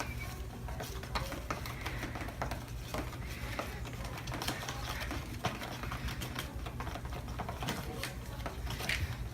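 A straw stirring the coloured slime mixture in a container, making rapid, irregular clicks and taps against its sides, over a steady low hum.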